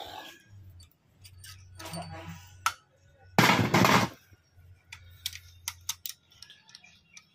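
Scattered metal clicks and knocks from hands and tools working on the exposed camshaft and cylinder head of a Toyota 1C engine, with a louder scraping rush lasting under a second a little before the middle.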